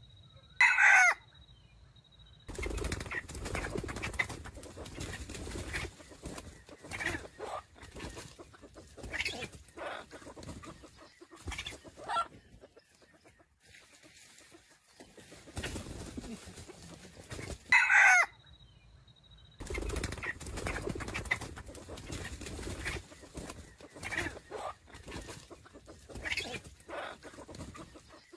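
A red junglefowl (wild chicken) rooster crows twice, with short clipped crows about 17 seconds apart that fall in pitch. Between the crows come scattered clucks over a rustling noise.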